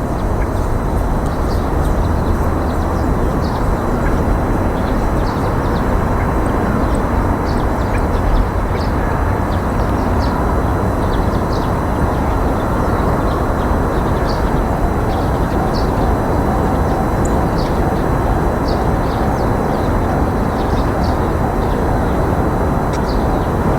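Steady rumbling outdoor background noise, with many short high chirps scattered throughout.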